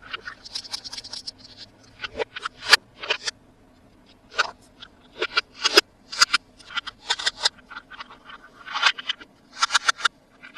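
Hands handling toys and packaging: an irregular series of sharp clicks, taps and short scratchy rustles, with a brief pause a little before the middle.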